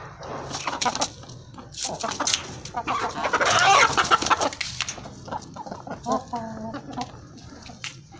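Chickens clucking and calling, with the loudest, harsh call about three seconds in and a quick run of clucks around six seconds.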